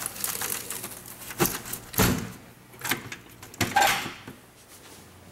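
Sheet-metal access door on an MEP-004A military diesel generator's enclosure being unlatched and handled: a few sharp metallic knocks and latch clicks over rustling handling noise.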